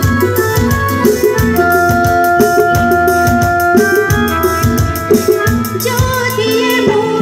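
Live band playing amplified through a PA: long held keyboard notes over a steady drum and percussion beat. A woman's singing voice comes in about six seconds in.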